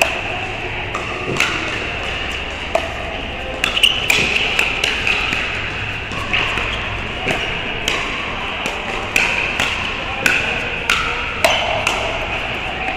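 Pickleball paddles striking a hard plastic pickleball during a rally: a string of sharp, ringing pops, some coming in quick pairs, with fainter hits from neighbouring courts mixed in.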